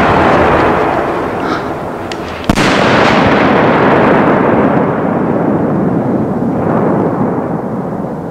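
Italian white rain aerial firework shell: the rumbling echo of its mortar launch, then a sharp burst about two and a half seconds in, followed by a long rolling echo that slowly fades.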